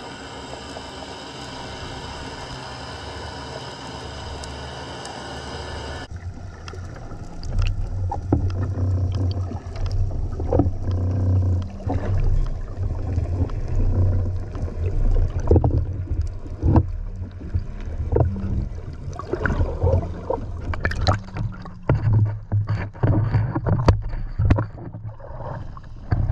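Underwater sound picked up through a camera's waterproof housing: a steady hum of several even tones for about six seconds, then muffled low rumbling water noise with knocks and sloshing against the housing as it moves just under the surface.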